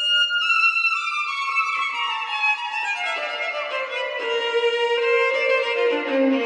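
Solo violin, bowed and unamplified, playing a melody that steps down in pitch note by note from high to low. Each note rings on into the next in the natural reverberation of the room.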